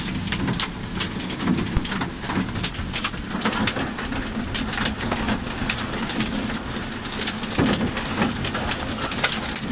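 Torrential rain beating on the roof and windshield of a car, heard from inside the cabin: a dense run of sharp individual hits over a steady hiss.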